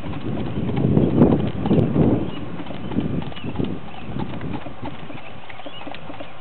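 Hoofbeats of a two-year-old Tennessee Walking Horse gelding carrying a rider over a gravel track: a quick, even clip-clop with small crunching ticks. It is louder for about a second near the start.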